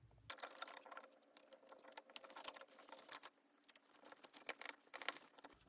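Faint, irregular small clicks and scrapes of a screwdriver turning the screw terminals on a smart dimmer switch, tightening the clamp plates down on the line wires.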